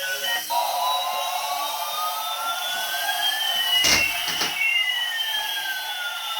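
Electronic synthesized sound: two tones glide slowly in opposite directions, one rising and one falling, crossing about four seconds in, with a couple of sharp hits near that point.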